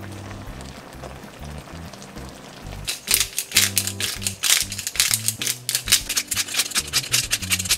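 Pepper grinder being twisted over a pan of cream pasta: a quick run of crunching clicks from about three seconds in until near the end, over background music.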